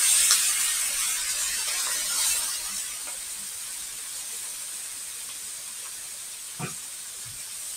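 Onion, diced bacon and ham frying in a large pan, sizzling hard just after soy sauce is poured in. The hiss is loud at first and eases to a steady lower sizzle over the first few seconds, with a single light knock about six and a half seconds in.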